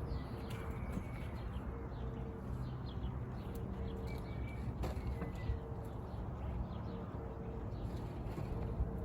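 Outdoor birdsong: short chirps, with a low cooing call repeated over and over, over a steady low background rumble. A single sharp click about halfway through.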